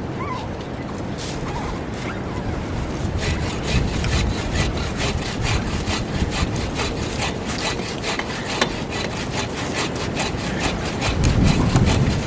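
Hand saw cutting through a tree branch in quick, even back-and-forth strokes that grow denser from about three seconds in. A low wind rumble swells near the end.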